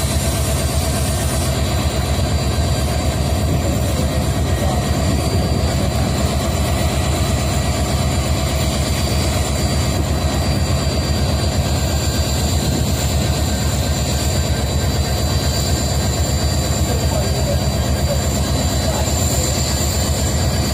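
EMD GT46MAC (Indian Railways WDG4) diesel-electric locomotives running steadily at idle. The two-stroke V16 EMD 710 diesel makes a low, even hum, with steady high-pitched whines over it.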